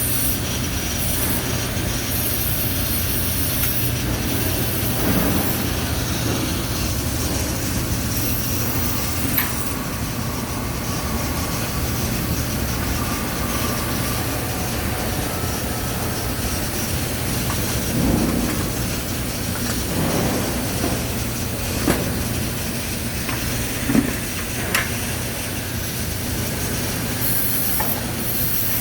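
Steady industrial rumble and hiss of running plant machinery, with a few brief knocks or clicks.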